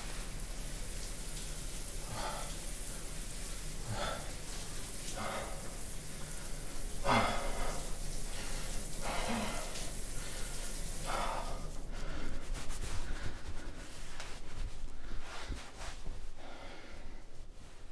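Shower water running with a steady hiss that stops about twelve seconds in. Over it a man breathes out heavily every second or two, the strongest breath a little past the middle.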